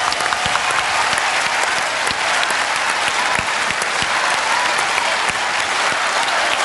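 Studio audience applauding steadily, a dense wash of many hands clapping.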